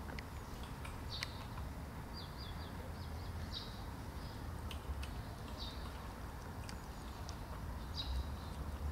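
Small birds chirping in short high calls every second or two, with a quick run of four notes about two and a half seconds in, over a steady low rumble. Scattered faint clicks run through it.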